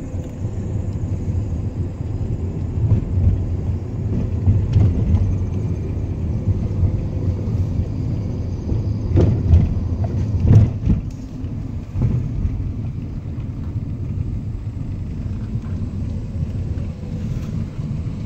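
Low rumble of a car's engine and tyres heard from inside the cabin while driving slowly, with a few short thumps about nine to twelve seconds in.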